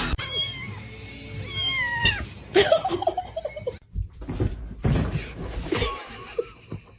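A domestic cat meowing several times, drawn-out calls that bend in pitch.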